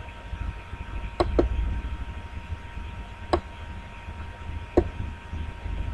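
Computer mouse clicking: a quick double click about a second in, then two single clicks, over a steady low hum.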